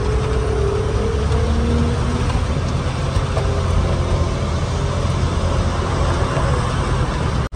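Loaded heavy truck driving, its engine giving a steady low rumble under road noise.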